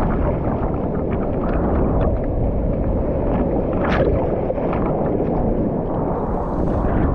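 Steady rush of ocean surf with wind buffeting the microphone, and scattered small splashes of water; one sharper splash about four seconds in.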